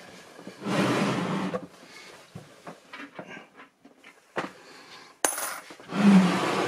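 Metal board-game coins and pieces being gathered up and packed away: clattering handling noise in two bursts, about a second in and near the end, with small clicks between them and one sharp click a little after five seconds.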